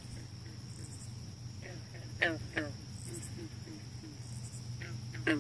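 Crickets chirping in a steady high-pitched drone. About two seconds in come a couple of short squeaks that fall in pitch, followed by a few faint ones.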